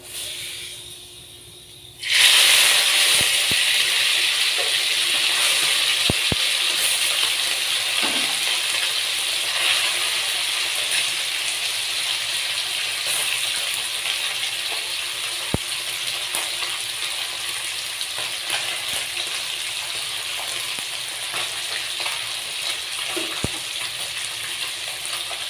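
Pieces of fish rubbed with salt and turmeric go into hot oil in a kadai. They start to sizzle loudly all at once about two seconds in, and the sizzle then runs on steadily and slowly fades as the fish fries, with a few small pops.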